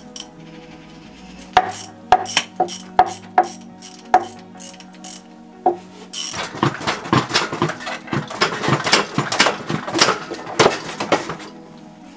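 Hand ratchet clicking as the bolts joining the gearbox to the engine are undone: single sharp clicks at first, then from about halfway a fast clatter of clicks for several seconds. Background music plays underneath.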